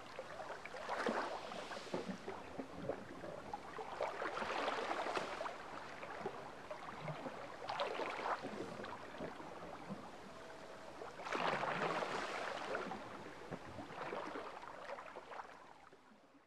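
Calm sea lapping and splashing gently against a granite rock at the water's edge, swelling every three to four seconds. It fades out near the end.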